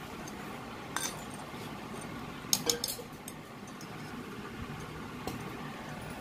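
A few light clinks of metal on a stainless steel plate: one about a second in, a quick cluster of three near the middle, and one more near the end, over a steady low background noise.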